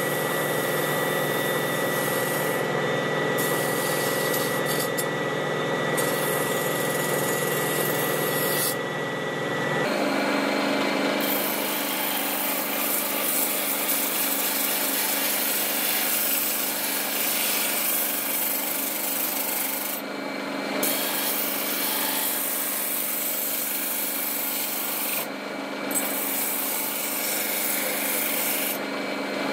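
A rusty steel machete blade is pressed against a spinning wire brush wheel on a motor-driven shaft, and about ten seconds in it moves to a spinning sandpaper drum. The result is a steady scraping and rubbing over the running motor as rust is stripped off, with the blade lifted off briefly twice near the end.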